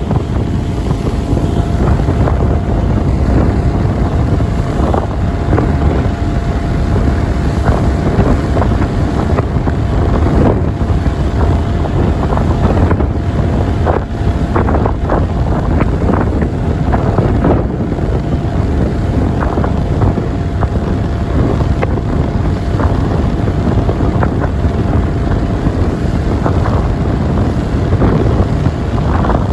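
Car ferry under way: a steady low rumble from the ship's engines, with wind buffeting the microphone in gusts. A faint steady whine sits above the rumble.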